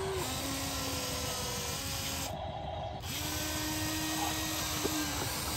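Small electric motors of a toy remote-control excavator whirring. The steady whine steps up and down in pitch as different movements start and stop, with a short break a little past halfway.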